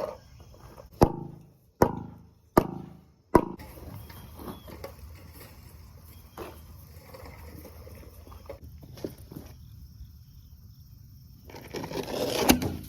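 Four hard strikes on metal pipe, each ringing out briefly. They come about a second apart as the pipe is smacked to drive it through the steel well-casing sleeve. A louder scraping noise follows near the end.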